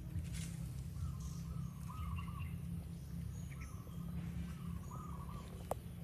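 A bird calling over and over, a short wavering phrase about every second and a half, over a steady low rumble; a single sharp click near the end.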